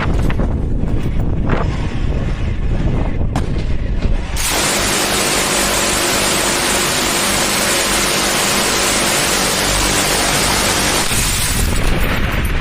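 Gatling-type rotary machine gun firing one long continuous burst, the shots so fast they merge into a dense buzz. It starts abruptly about four seconds in and lasts about six and a half seconds, with low, rough noise and a few sharp cracks before and after it.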